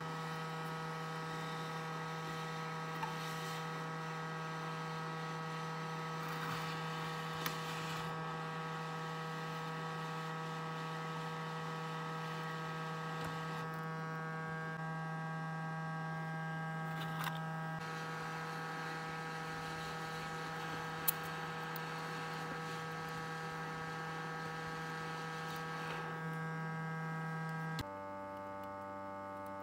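Hot-air rework station's handpiece fan running with a steady hum while heating the circuit board to desolder an IC, with a few faint clicks. Near the end the hum changes to a quieter, lower-pitched tone.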